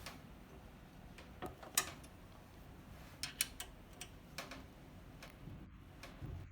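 Faint, irregular light clicks and taps of a number 4 wrench working on the screws of a pen-plotter writing machine as they are loosened.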